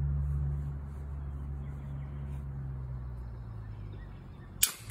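A single sharp crack from a .22 LR rifle shot about four and a half seconds in, over a steady low hum.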